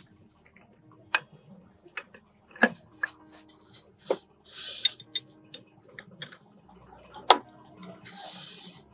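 Scattered metallic clinks and knocks as a geared lug-nut torque multiplier and its socket are fitted onto a truck wheel nut and its wrench handle is put on, the sharpest knock a little past seven seconds in, with a couple of short scraping sounds between them.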